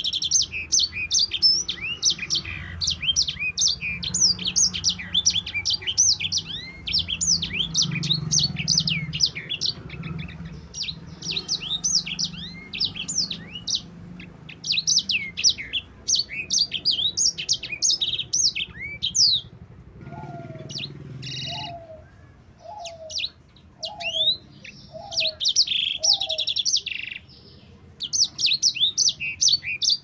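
Caged sanger finch singing, with long, fast, high-pitched twittering rolls broken by short pauses. About two-thirds of the way in, a run of six lower, evenly spaced notes sounds under the song.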